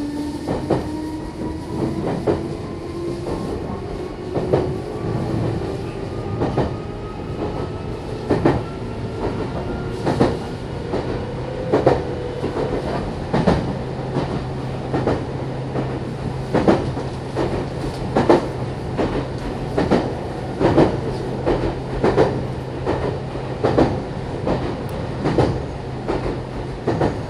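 Meitetsu 6800 series electric train running, heard from inside the passenger car. The traction motors' whine rises in pitch through about the first dozen seconds as the train gathers speed, then holds steady. Over it the wheels click over rail joints, about once every second and a half.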